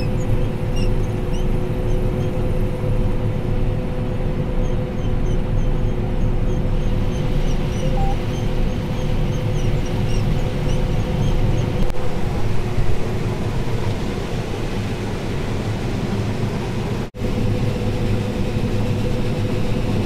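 John Deere combine harvesting corn, heard from inside the cab: a steady low rumble with a steady whine over it. The sound breaks off for a split second about 17 seconds in, then carries on.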